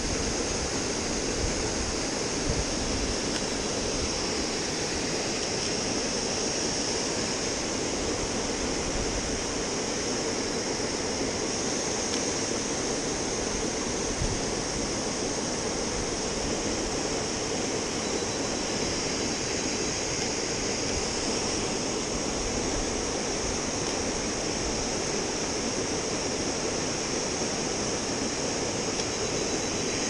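Waterfall and stream water rushing with a steady, unbroken noise.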